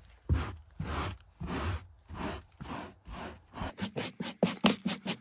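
Stiff hand brush scrubbing back and forth across car floor carpet, its bristles scraping up dirt and debris. The strokes are slow at first, then quicker, about five a second, for the last second and a half.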